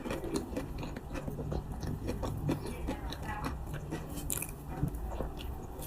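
A person chewing Monthong durian flesh, with many small, irregular wet mouth clicks and smacks.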